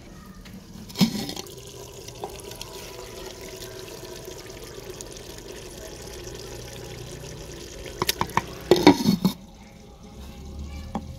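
A wooden spoon stirring and scooping thick potato-and-fenugreek (aloo methi) curry in a clay handi, a steady wet squelching. There is a sharp knock against the clay pot about a second in, and a cluster of knocks and scrapes around eight to nine seconds.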